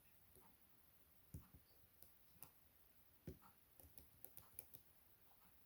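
Faint, irregular metallic clicks and taps of a lock pick probing the pins inside a Chubb M3 lock under tension, with a quick run of clicks a little after halfway.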